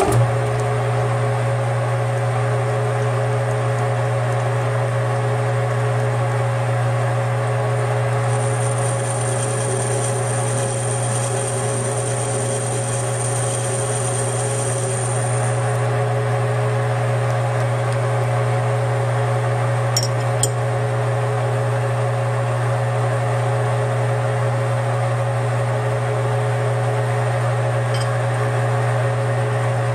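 Metal lathe coming up to speed and running with a steady hum while a welded-up hydraulic fitting is faced and chamfered. A thin high whine comes in for several seconds in the middle, and a few light clicks sound later.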